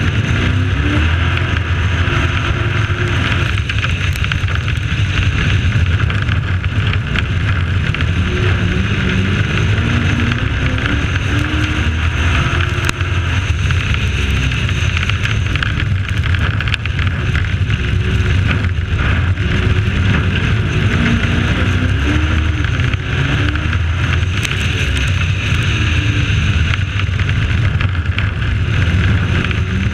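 Race truck's engine running hard on a dirt oval, its pitch rising and falling repeatedly as the throttle comes on and off through turns and straights, with wind rushing over the microphone.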